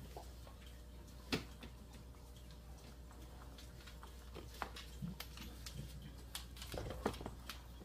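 Scattered light clicks and taps from puppies' claws and paws moving about on the play-area floor, irregular and sparse, with a louder tap about a second in and a cluster near the end, over a low steady hum.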